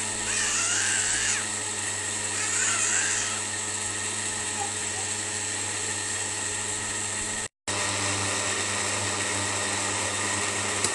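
Panasonic juicer-blender motor running steadily as it churns fresh cream (malai) into butter. The sound cuts out for a split second about seven and a half seconds in.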